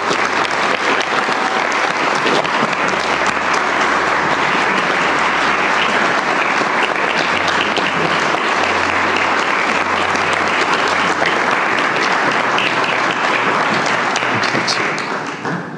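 Wedding congregation applauding, a long, steady spell of many people clapping that dies away near the end.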